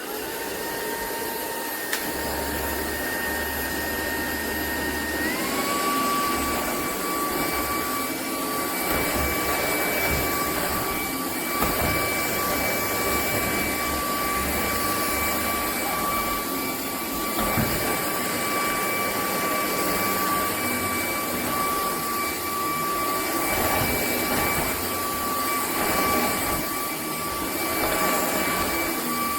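Vacuum cleaner motor switching on and running with a steady high whine and rushing air noise. The whine steps up in pitch about five seconds in as the motor speeds up.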